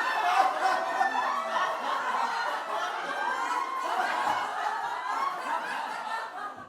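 People laughing, several voices overlapping, fading out near the end.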